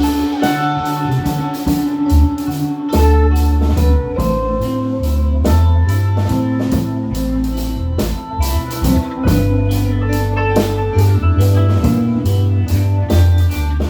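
Music: a drum kit keeps a steady beat over a deep bass line that steps from note to note, with held notes from other instruments above.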